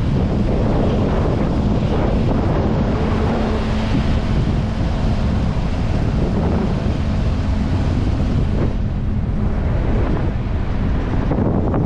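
Strong, steady wind buffeting the microphone.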